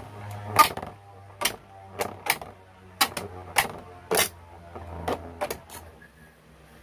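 Infinity Nado spinning top spinning in a plastic stadium dish with a steady low hum, broken by about a dozen sharp clacks at irregular intervals. The hum stops about six seconds in.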